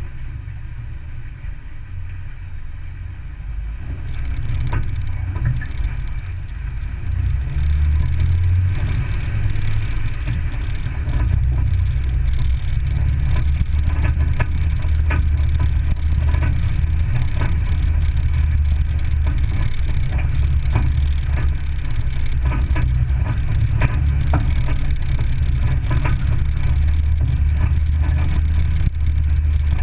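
A vehicle driving on a gravel road, heard from inside the cab: a steady low engine and tyre rumble with scattered clicks and knocks from gravel and bumps. The rumble grows louder about four seconds in and again around eight seconds.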